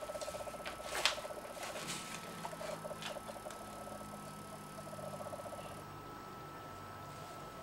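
A cat rummaging in an open trunk: scattered knocks and rustles of objects being moved, the sharpest knock about a second in, with three short bursts of a rapid rattling sound.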